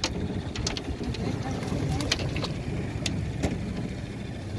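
Steady low rumble aboard a small fishing boat, with a scattering of sharp clicks and knocks.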